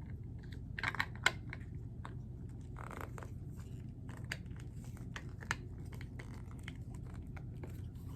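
Plastic figure parts being handled and pressed into place: scattered light clicks and taps, with a louder click about a second in and a short rustle of packaging around three seconds.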